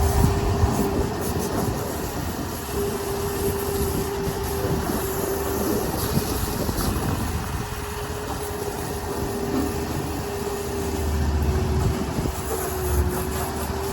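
Steady machine hum: one constant mid-pitched tone over a rumbling noise.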